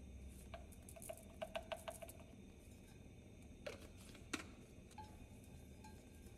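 A few faint, light clinks and taps of kitchenware: a quick run of about five small ticks about a second in, then two sharper clicks a little later, over quiet room tone.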